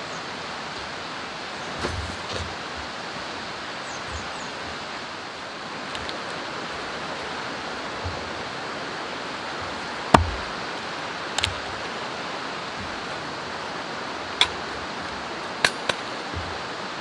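Steady rushing of a stream, with a handful of short, sharp knocks of a hatchet and gear being handled on wooden log rounds; the loudest knock comes about ten seconds in.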